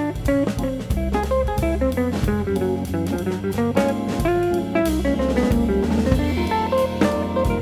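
Background music: an instrumental track with plucked guitar over bass and a steady drum-kit beat.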